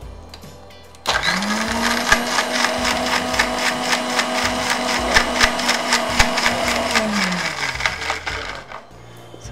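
Mixer grinder with a stainless-steel jar grinding soaked almonds and a little milk into a paste. The motor starts abruptly about a second in and runs at a steady pitch. Near the end it is switched off and its whine falls as it winds down.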